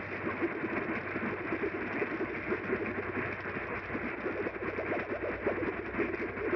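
AM radio receiving a steady rough static hiss and crackle through its small speaker, with no clear programme coming through.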